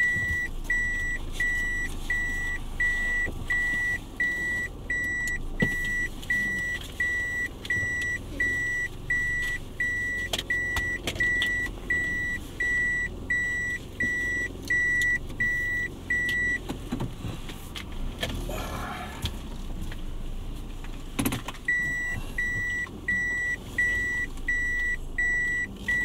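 A car's electronic warning chime inside the cabin: a single high beep repeating evenly about twice a second. It stops about sixteen seconds in and starts again about five seconds later, just after a click.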